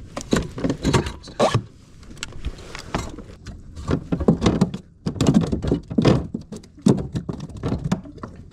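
Irregular knocks, thumps and rattles of handling on a plastic fishing kayak close to the microphone, as a bass is measured on a measuring board on the deck.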